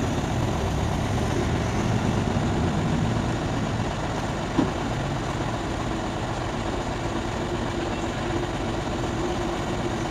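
Demag AC 615 all-terrain crane's diesel engine running steadily with a low rumble, with one short knock about halfway through.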